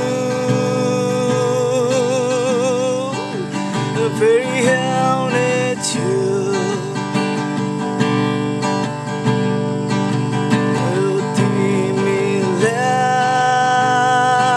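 A man sings in Nepali to his own acoustic guitar accompaniment, holding long notes with vibrato at the start and again near the end.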